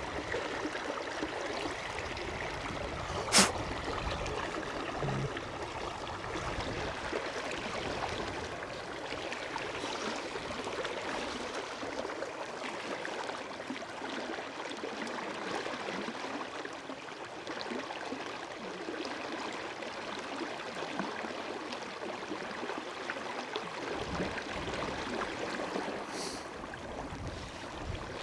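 River water running steadily over a shallow riffle, with one sharp click about three seconds in.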